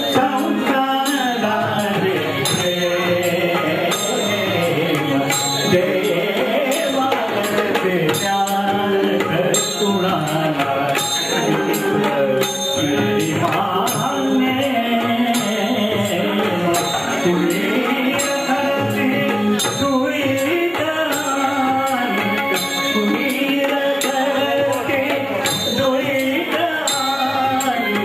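A man singing a song into a handheld microphone, amplified through the hall's loudspeakers, with a hand drum keeping a steady rhythm under the melody.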